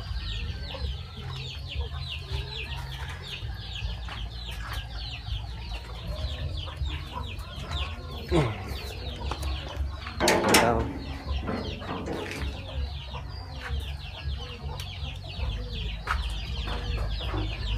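Chickens clucking and calling: many short, high calls overlap throughout, with one louder burst of sound about ten seconds in.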